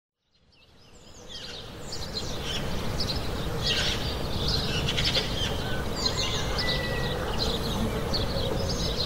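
Birds chirping, fading in from silence over the first two seconds: many short, quick chirps over a low, steady hum. The birdsong opens a country song's intro.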